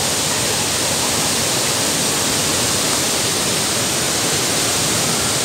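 Several cascades of Hogenakkal Falls pouring over rocks and a weir into the river: a steady, even rush of falling water.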